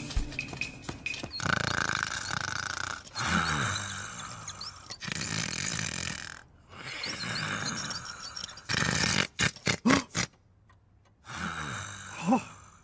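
Cartoon hand-tool work sounds: several stretches of rasping scraping noise, then a quick run of sharp knocks about nine seconds in, and a short grunt near the end.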